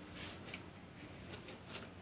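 Faint crunching and rustling of popcorn being picked up by mouth from a sheet of newspaper, with a few short crisp ticks.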